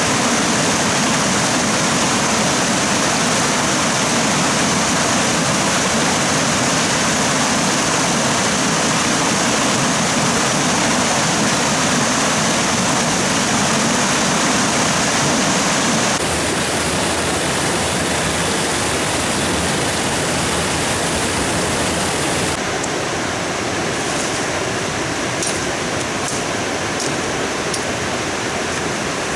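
Steady rush of water with no pitch to it. Its character changes abruptly about halfway through and again near the end, where faint light ticks sound over it.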